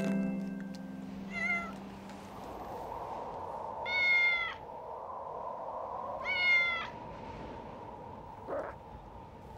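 A cat meowing: one short faint meow, then two longer meows about two and a half seconds apart.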